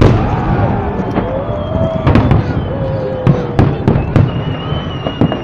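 Fireworks salute: about a dozen sharp bangs of shells bursting in irregular succession, the loudest right at the start.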